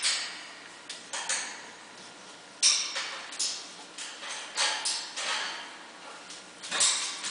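Adult boxer and boxer puppy play-wrestling on a blanket: irregular short rustles and breathy noises from the dogs' mouthing and tussling, the sharpest one about two and a half seconds in.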